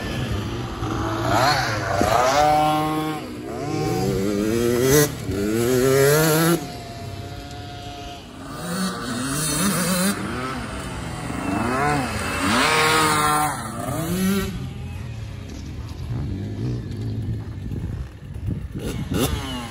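Small dirt bike engine revving up and easing off over and over as the bike rides around a dirt track, its pitch climbing in several runs and falling back between them.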